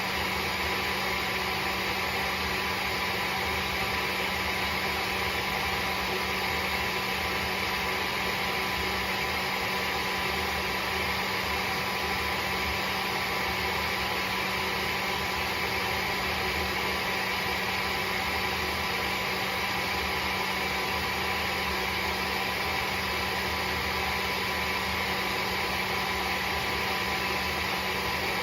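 Tineco Floor ONE S5 wet-dry vacuum mop running its self-cleaning cycle on the dock: the suction motor and brush roller run with a steady hum as it flushes the roller and internal channel.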